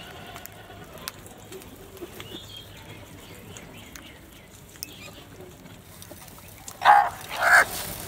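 House crows giving two loud, harsh caws in quick succession near the end, over a low background with a few faint taps as the flock pecks at a bowl of grain.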